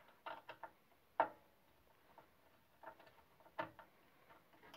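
Hex key clicking and scraping in the hex-socket screws of the guard on a Ryobi RBDS4601G belt and disc sander as they are turned, with the motor off: irregular short ticks, the sharpest just over a second in.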